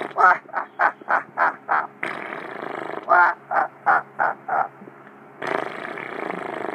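A man's voice making two runs of short, quick, quack-like cries, about three a second, with breathy hissing before, between and after them.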